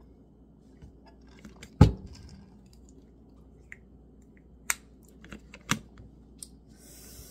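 A metal tumbler set down on the counter with one loud knock about two seconds in. Then come sharp plastic clicks from a weekly pill organizer's compartments being opened and handled, and a short rustle near the end.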